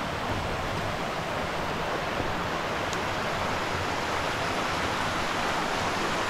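Shallow rocky stream running over small rapids: a steady, even rush of water.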